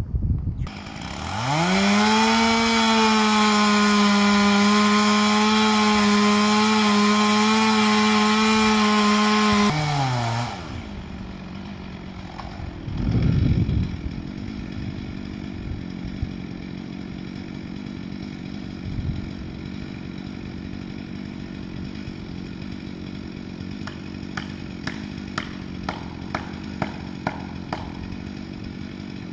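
Two-stroke chainsaw revved up to full throttle and held there for several seconds, then let down. It then runs more quietly while cutting into a standing dead tree, with one louder surge a few seconds after the let-down. A run of sharp, evenly spaced clicks comes near the end.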